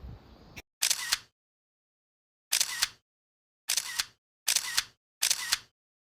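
Camera shutter sounds, five separate clicks at uneven spacing, each about half a second long, with dead silence between them.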